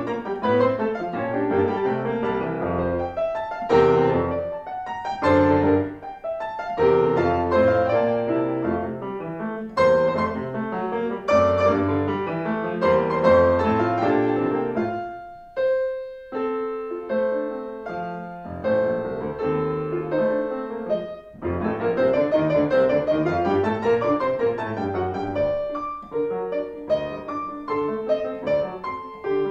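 Grand piano played four hands by two pianists: a fast, dense passage that drops to a quieter, sparser stretch of held notes about halfway through, then builds back into full, busy playing.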